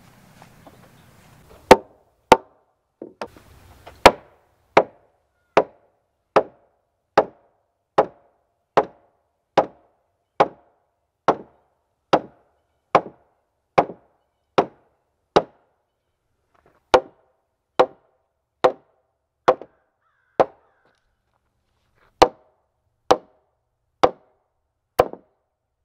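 A short-handled sledge hammer striking a hewn log floor joist: single sharp blows on the wood at a steady pace of a little more than one a second, with two short pauses late on.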